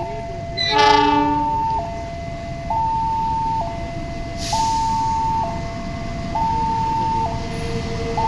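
Railway level crossing alarm sounding its two-tone warning, alternating between a higher and a lower tone about once a second. A passing train gives a short horn blast about a second in, over a steady rumble.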